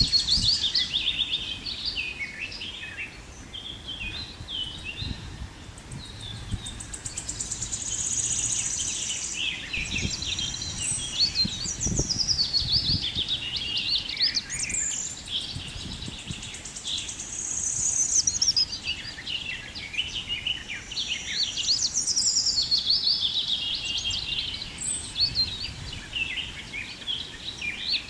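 Several birds chirping and singing at once, a steady stream of high, overlapping calls and trills, with a couple of brief low rumbles of wind on the microphone near the middle.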